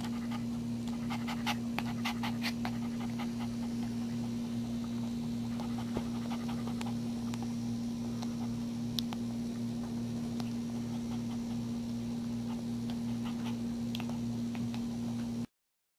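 Maltese mother dog panting close to the microphone over a steady low hum, with a few soft clicks. The sound cuts off suddenly near the end.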